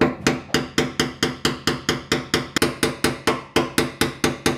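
Hammer rapidly tapping a screwdriver braced against the fuel-tank sending unit's retaining ring, about six metal-on-metal strikes a second, each with a short ring. The ring is being driven round to free the old sending unit.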